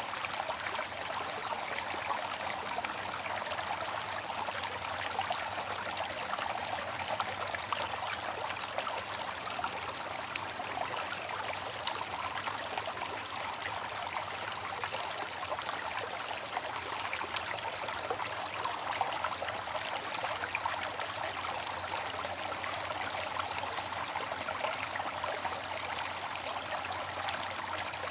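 Water fountain splashing and trickling steadily, a continuous even rush of falling water with fine splashes.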